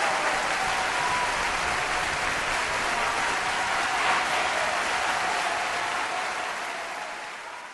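Large crowd cheering and applauding in a dense, steady wash of clapping and voices, fading away over the last couple of seconds.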